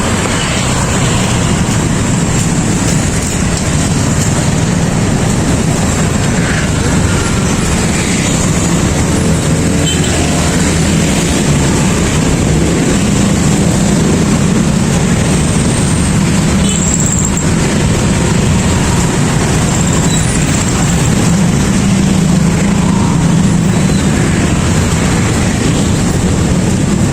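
Steady, loud din of a busy street market, dominated by a continuous low rumble of passing vehicles.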